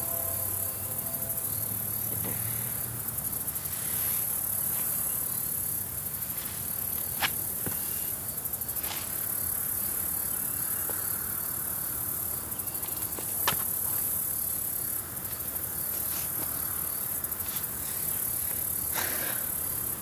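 Chorus of crickets trilling steadily at a high pitch, with two sharp clicks about seven seconds apart.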